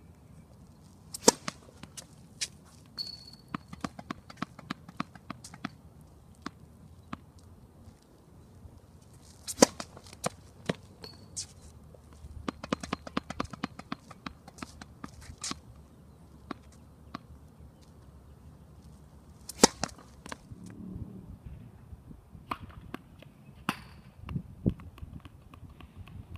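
Tennis balls struck with rackets: a scattered series of sharp pops, the three loudest about a second in, about ten seconds in and near twenty seconds in, with lighter knocks between them.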